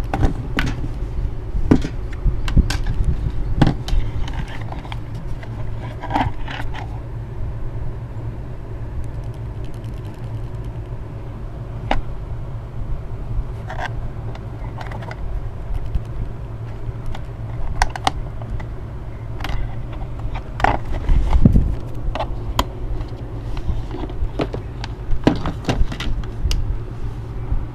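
A 1987 Realistic Weatheradio Alert III giving a steady low hum, with many scattered clicks and knocks and a few short blips of tone as it is handled and its controls are worked.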